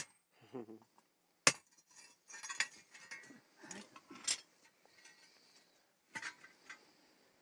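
Iron forge tools clinking and knocking against a steel anvil plate: about five sharp metallic strikes at irregular intervals.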